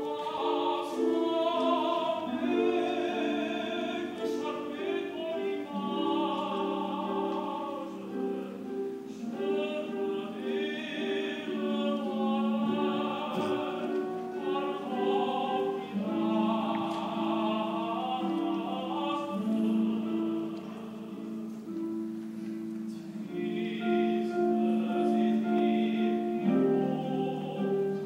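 A young man singing a classical, operatic-style solo with heavy vibrato over an accompaniment of long held chords.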